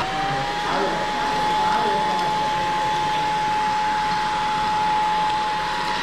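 Cordless stick vacuum cleaner running: a steady high motor whine over a rush of air.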